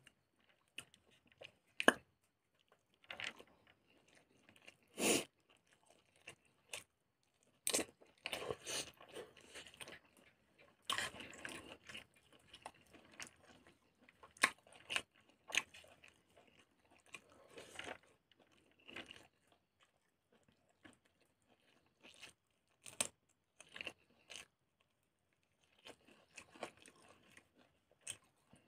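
Close-miked chewing and crunching of pork intestine and rice in the mouth, in irregular bouts with sharp, wet mouth clicks and short pauses between them.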